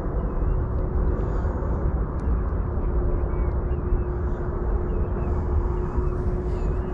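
Steady, loud outdoor rumble concentrated in the low end, with a thin steady engine-like hum that grows stronger about three seconds in.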